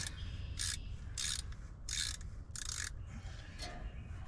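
Hand socket ratchet clicking in four quick strokes, about two-thirds of a second apart, as it backs a freshly broken-loose spark plug out of an old GMC V6 engine.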